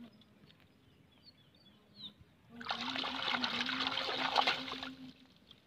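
Hands splashing and churning shallow water hard for about two and a half seconds, starting a little before halfway through after a quiet start.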